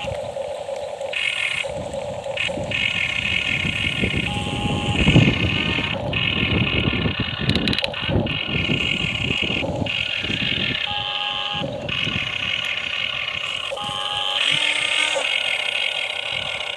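XCMG excavator's diesel engine and hydraulics working under load as it digs, a steady rumble with a high whine over it. The rumble rises about five seconds in.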